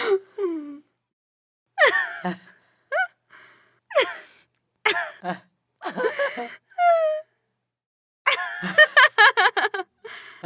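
Two women laughing in short bursts, with gasping breaths between them. Near the end the laughter runs together into a longer stretch of rapid laughing.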